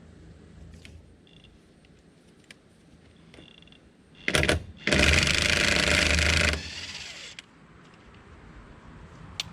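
Impact wrench spinning off a wheel's locking lug nut through its key socket: a brief burst, then about two seconds of loud, rapid hammering that stops as the nut breaks free, with small clicks of the socket being fitted before it.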